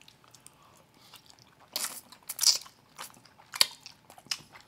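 Close-miked eating sounds as in ASMR: people chewing mouthfuls of pasta, with irregular wet mouth clicks and smacks, loudest around two seconds in.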